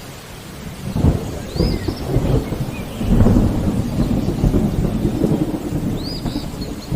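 Thunder rumbling over steady rain, building about a second in and loudest around three seconds. A bird gives a short arched chirp twice.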